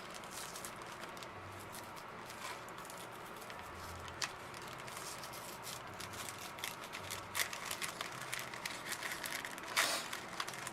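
Paper wrapping being handled and carefully peeled open: soft rustling and crinkling with scattered small clicks, growing busier in the second half, with one louder crinkle near the end.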